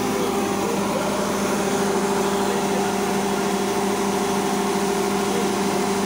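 Marksan K-BOS Mudmaster MS-1200 rice combine harvester running steadily while it unloads threshed grain from its spout: a constant engine hum over an even hiss.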